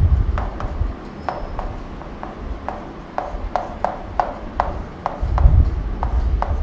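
Chalk writing on a chalkboard: an irregular run of short taps and strokes, about three a second. A low thump comes about five seconds in.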